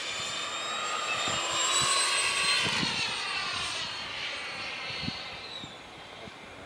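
Electric ducted fan of a Falcon 120 RC jet whining as the model flies past: a high, steady whine of several pitches that rises and swells to its loudest about two seconds in, then drops in pitch and fades as it goes away.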